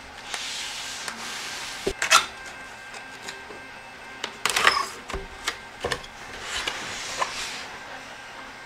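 Corrugated cardboard boxes being handled: the inner box rubbed, slid and tilted against the outer box, with irregular scraping and a few dull thumps. The loudest scrapes come about two seconds in and again around four and a half seconds.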